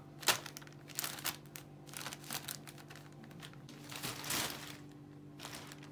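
Plastic shopping bags crinkling and rustling in irregular bursts as a tabby kitten paws at them and burrows into them, the loudest crackles near the start, about a second in and around four seconds in. A faint steady hum runs underneath.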